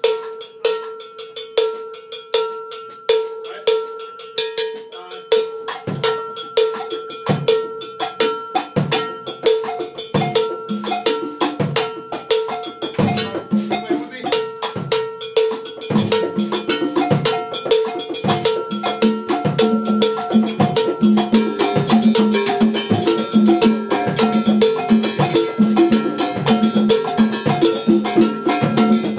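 A percussion ensemble playing an Afro-Cuban groove. A steady repeating pitched pattern opens, bass drum strokes join about six seconds in, and more drums fill in over the second half, so that it builds up.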